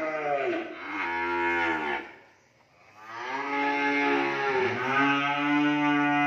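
Young beef cattle mooing: a run of long, drawn-out moos one after another, with a brief silence a little over two seconds in.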